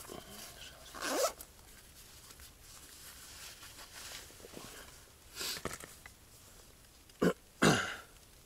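A few short rustling, scraping noises, the loudest two coming close together near the end.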